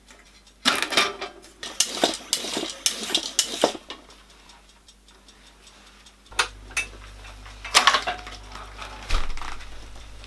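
Bicycle tools and parts handled in a workshop: irregular metallic clinks and clatter, a busy run in the first few seconds, a lull, then more clinks over a low hum from about six seconds in.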